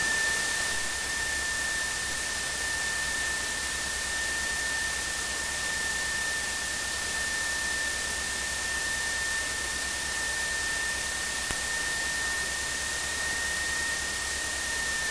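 Steady hiss with a thin, steady high whine, as heard through a Piper Pacer's cockpit intercom while the plane taxis at low power. The whine dips slightly in pitch near the end.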